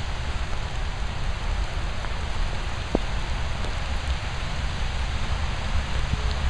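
Steady rain falling, a continuous hiss with a low rumble underneath.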